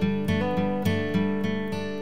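Background music: an acoustic guitar plucking chords at a steady, even pace, with no singing.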